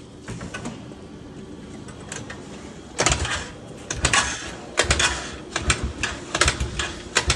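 Irregular clunks and rattling knocks from a stalled TVS Ntorq scooter being rocked and handled on its stand, starting about three seconds in and coming several to a second.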